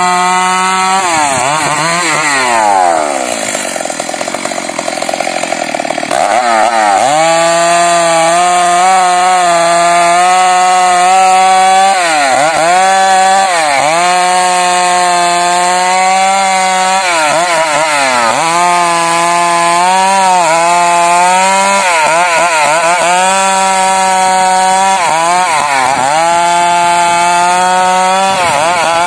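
Two-stroke chainsaw engine running at high revs. About two seconds in it falls to a quieter idle for a few seconds, then revs back up, its pitch dipping briefly every couple of seconds.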